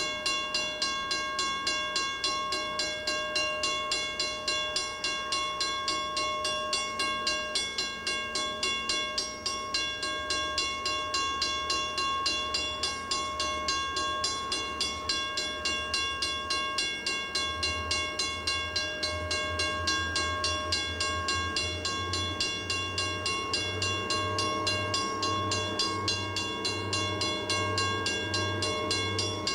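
Diesel locomotive approaching, its low engine rumble coming in about ten seconds in and growing stronger in the last third. A steady high-pitched whine sounds throughout.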